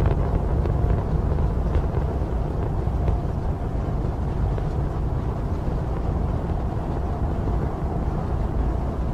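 Rocket engines giving a steady, deep rumble, with a faint crackle now and then.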